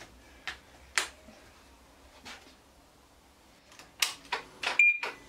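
Sharp clicks and knocks from handling a phone mount on a motorcycle: a few single clicks spread apart, then a quick cluster of louder ones near the end.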